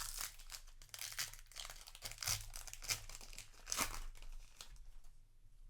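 Yu-Gi-Oh! booster pack's foil wrapper being torn open and crinkled in the hands: a run of irregular crackling rustles that dies down near the end.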